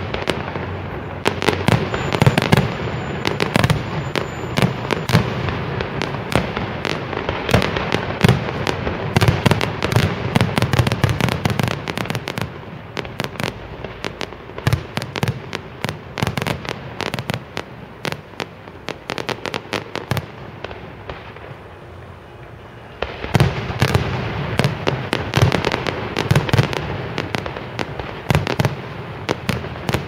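Aerial fireworks display: a dense run of bangs and crackling bursts from shells going off overhead. It eases off and grows quieter from about twelve seconds in, then a fresh, louder barrage starts about 23 seconds in.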